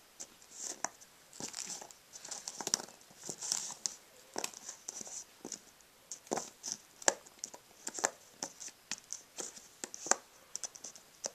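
Thin cardboard puzzle pieces being pushed, slid and tapped against a foam play mat by small hands: irregular short clicks and brief scraping rustles.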